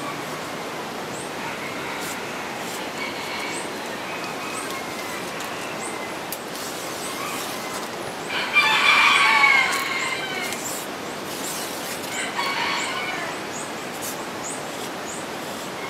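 A rooster crowing once, loudly, about halfway through, with a fainter crow a few seconds later and other faint calls over a steady background hiss.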